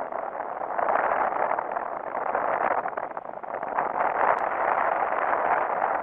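Marine VHF radio static: a steady hiss that wavers in level, in the same narrow band as the radio voices, during the pause between transmissions.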